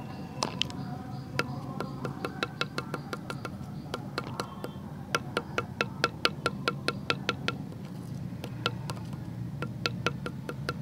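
Sharp wooden knocks of leaves being chopped on a wooden stalk: scattered at first, then a steady run of about four a second midway, a brief pause, and a few more near the end.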